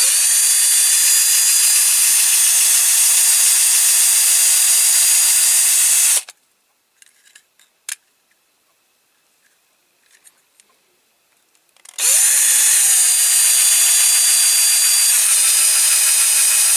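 Small electric drill running in two steady bursts, drilling out a rivet post on a diecast toy van to free its base plate; the second burst starts a little higher in pitch and settles lower. A few faint clicks of handling come in the pause between them.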